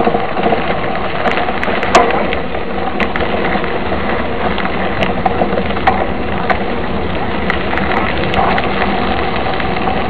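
Mountain bike rolling along a gravel dirt road: a steady rumble of tyres on loose stones with frequent sharp clicks and rattles, the loudest knock about two seconds in.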